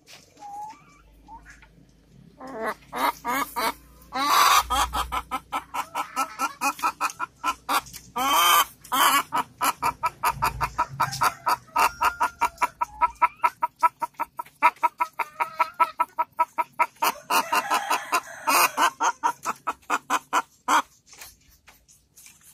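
An ayam kampung hen calling in a long, rapid run of clucks, about three to four a second, broken a few times by longer, louder drawn-out squawks. This is the pre-laying call of a hen looking for a nest, the sign that she is about to lay an egg.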